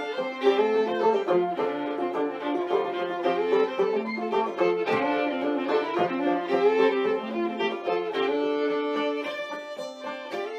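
Background instrumental music: a lively fiddle tune over plucked strings.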